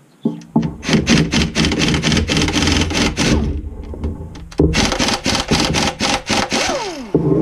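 Pneumatic wrench on an air hose run in two bursts of about three seconds each, with rapid hammering and a falling whine as each burst stops. It is undoing the connecting-rod cap bolts on a 6.4 Hemi short block.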